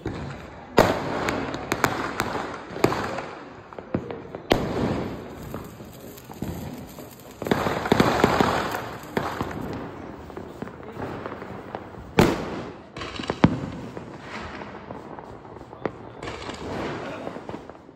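Diwali firecrackers and fireworks going off: sharp bangs at irregular intervals, the loudest about a second in and about twelve seconds in, with a loud spell of hissing and crackling around eight seconds in.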